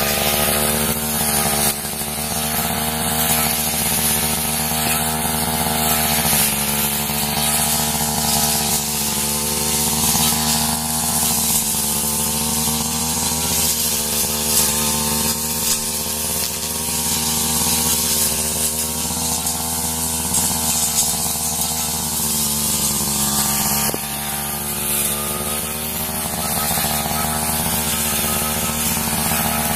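Backpack brush cutter engine running steadily at high speed as the blade cuts through dense weeds. Its pitch rises and dips slightly as the load changes.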